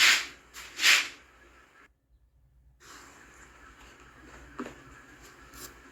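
Two quick squirts from a trigger spray bottle of soapy water, each a short hiss, about a second apart. A few faint light clicks follow near the end.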